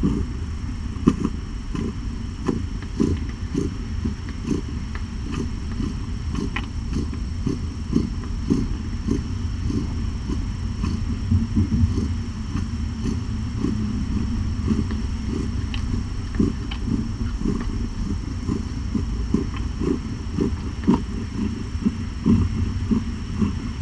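Mother cat purring steadily and loudly close to the microphone while nursing her kittens, with faint small clicks and rustles from the kittens moving on the bedding.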